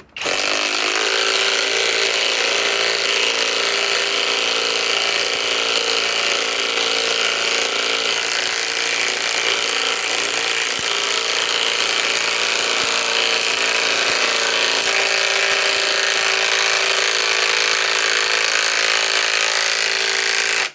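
Kobalt 24-volt right-angle impact wrench running under load, driving a 5-inch lag screw into an existing hole. It runs without a break for about twenty seconds, starting and stopping abruptly.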